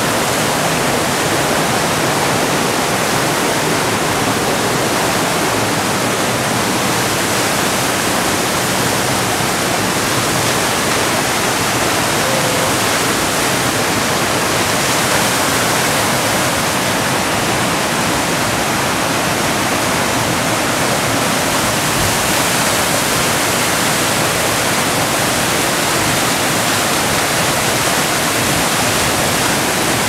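Steady, loud rush of a waterfall about 15 metres high falling onto rocks, with water cascading over boulders below it.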